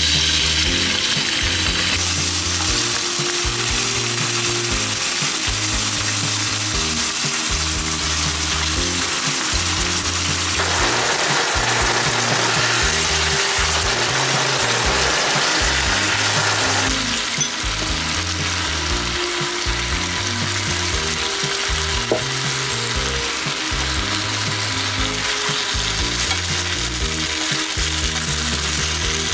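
Chicken breasts sizzling in olive oil in a frying pan, and then in tomato sauce as they simmer; the frying noise is steady, with a fuller stretch in the middle.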